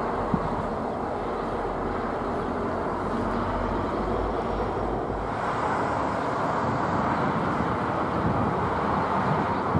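Two diesel locomotives running light at low speed, their engines giving a steady rumble.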